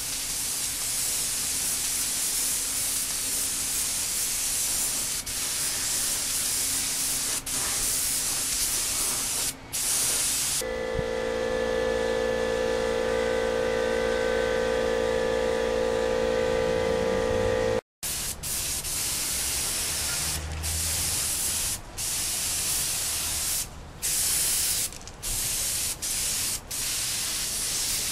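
Gravity-feed air spray gun hissing as it sprays red paint, in runs of several seconds broken by short pauses when the trigger is let go. Past the middle the hiss gives way for about seven seconds to a steady hum with a strong mid-low tone, then the spraying starts again in shorter bursts.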